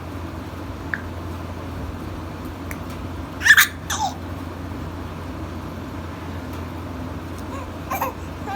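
A baby making short squeals and vocal sounds: a loud shrill one about three and a half seconds in, a brief one with a falling pitch just after it, and a smaller one near the end, over a steady low hum.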